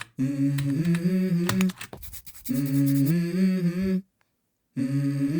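A man's voice humming a short melody in two phrases that step up in pitch, with a few sharp clicks between them, as the opening of a song. It breaks off into brief silence about four seconds in, then the hum resumes.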